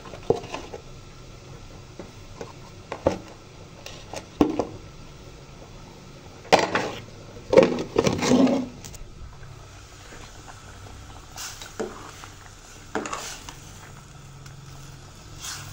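Kitchen utensils and containers being handled beside a pot on the stove: scattered clinks and knocks, with a burst of clattering about seven to nine seconds in.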